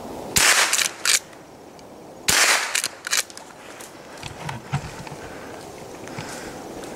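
Two gunshots about two seconds apart, each followed within a second by a shorter, sharper crack.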